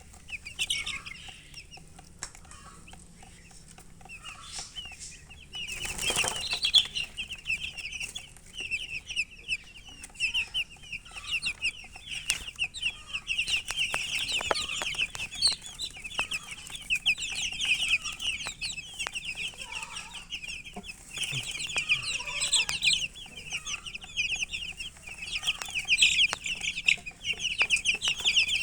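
A group of baby chicks peeping: many short, high calls, a few at first, then a dense, overlapping chorus from about six seconds in. A short thump sounds just as the chorus picks up.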